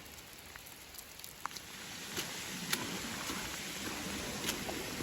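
Heavy rain: a steady hiss with scattered sharp drop taps, over water running down a trail turned into a stream. The running water grows louder about two seconds in.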